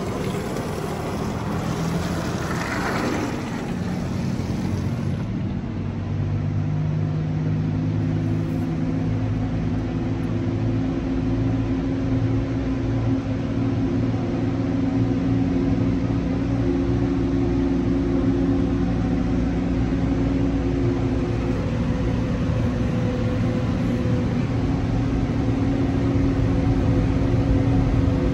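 Touch-free car wash air dryer blowers running, heard from inside the car: a broad blowing noise carrying several steady hum tones, after a brief shifting whine in the first few seconds, growing slightly louder toward the end.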